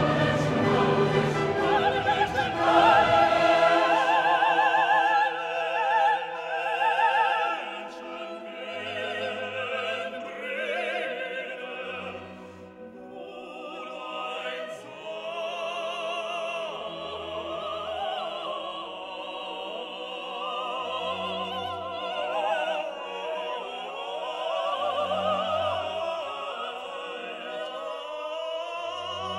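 Background music: classical singing in an operatic style with orchestral accompaniment, the voice held in long wavering notes. It is louder for the first several seconds, then settles softer.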